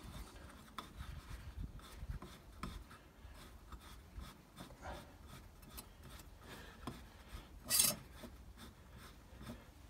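Hands and a cloth rag rubbing and scraping on the plastic end cover of an air-filter housing as it is fitted, with scattered small clicks and one short, louder rasp about eight seconds in.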